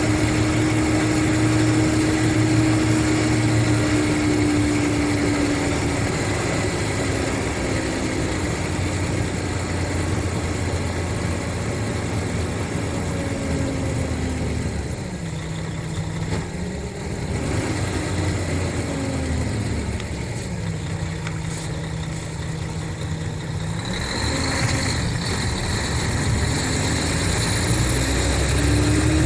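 Mercedes-Benz O500RSD bus's diesel engine running, its pitch falling and rising several times as the engine speed changes, settling to a lower steady note for a few seconds past the middle and climbing again near the end.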